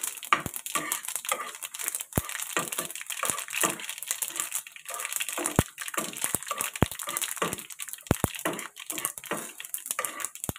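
Metal spatula scraping and knocking irregularly against a nonstick frying pan while stirring a tempering of garlic, dried red chillies and whole spices frying in hot oil, with a steady sizzling hiss underneath.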